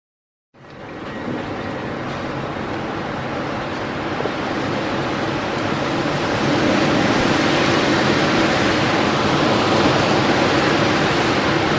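Wind sound effect: a steady rush of strong wind that fades in after a brief silence and builds gradually over the first several seconds, then holds.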